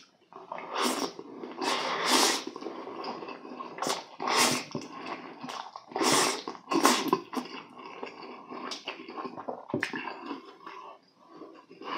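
Close-miked eating sounds of a person slurping Buldak spicy stir-fried ramen noodles, with several short, sharp slurps in the first seven seconds or so, then quieter wet chewing.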